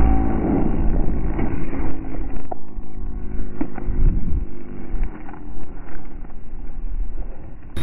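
Wind buffeting the tiny microphone of a keychain camera riding on a parachuting action figure: an uneven low rumble with scattered clicks and taps, and a faint hum that slowly falls in pitch.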